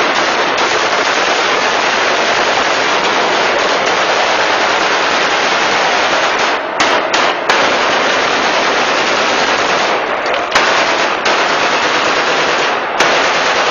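Many rifles firing into the air at once in celebratory gunfire, the shots overlapping into a loud, dense, continuous rattle that thins briefly a few times in the second half.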